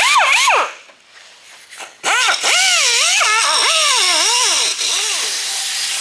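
Angle grinder cutting the heads off steel rivets. There is a short burst at the start with its whine dropping in pitch, then about four seconds of cutting from two seconds in, the whine dipping and recovering as the wheel bites into the metal over a loud hiss.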